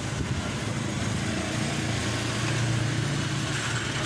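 Toyota Corolla 'Big Body' engine running steadily, with a low drone that grows slightly louder midway.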